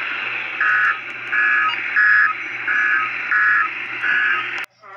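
Weather alert radio giving six short electronic beeps, about one every 0.7 s, over steady radio static. It is heard through a TV speaker, and the static cuts off suddenly near the end.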